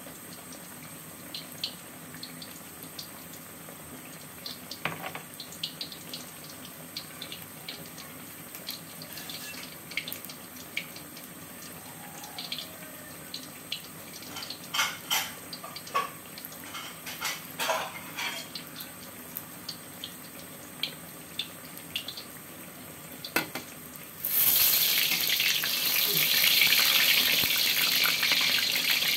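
Tempe deep-frying in oil in a wok: a quiet sizzle with scattered pops and crackles, then near the end the tempe is turned with a spatula and the frying suddenly becomes a loud, steady hiss.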